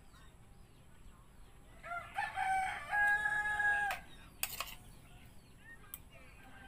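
A rooster crowing once, starting about two seconds in: a multi-part call ending on a long held note that breaks off at about four seconds. A couple of sharp clicks follow.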